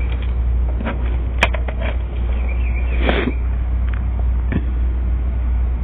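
A steady low hum, with a few light clicks and taps and a brief soft rustle about three seconds in.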